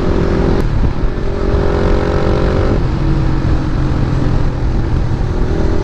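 KTM Duke 250's single-cylinder engine running through an aftermarket Akrapovic exhaust while riding, its note shifting in pitch a few times, over wind rumble on the microphone.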